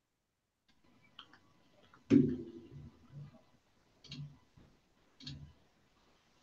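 Faint computer mouse clicks, a few spaced about a second apart, the loudest about two seconds in with a dull thud under it.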